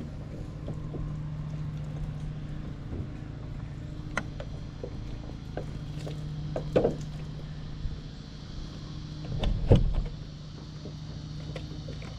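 Steady low mechanical hum under scattered small clicks and knocks of plastic water bottles being handled and searched for spent bullets, with a heavier thump near ten seconds.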